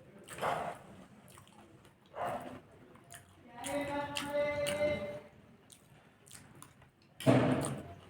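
Close-miked eating sounds: a few separate wet chewing and slurping bursts, the loudest near the end. Around the middle a short voiced hum, like an "mmm", lasts about a second and a half.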